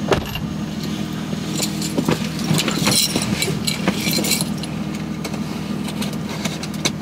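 Someone rummaging over a car's front seat searching for a lost phone: rustling, clicks and metal jingling, over a steady low hum.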